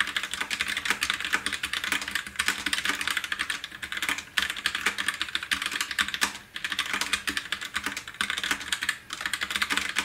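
Fast two-handed typing on a Roccat Vulcan TKL mechanical keyboard with linear (red-type) switches, a dense run of key clacks with short breaks a few times. The keys give a slightly hollow, metallic sound when they bottom out against the aluminium plate.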